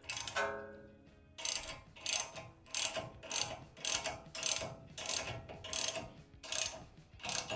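Ratchet wrench clicking in repeated back-and-forth strokes, about ten of them at an even pace starting about a second in. It is tightening a ball joint separator to press the worn, loose outer tie rod end out of the steering knuckle. A brief metallic ringing tone comes first.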